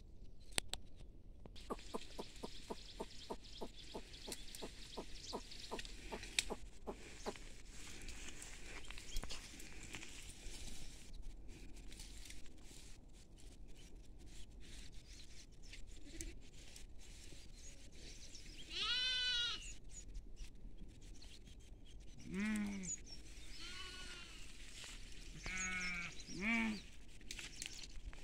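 Goats bleating four or five times in the second half: one higher-pitched call about two-thirds of the way in, then lower bleats a few seconds apart, two of them close together near the end. Earlier there is only a faint hiss with light regular ticking, about three a second.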